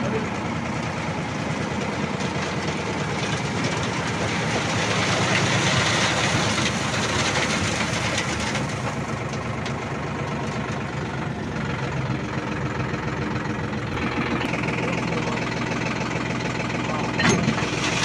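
Sonalika tractor's diesel engine running steadily, a little louder for a few seconds in the middle. A brief metallic clatter near the end.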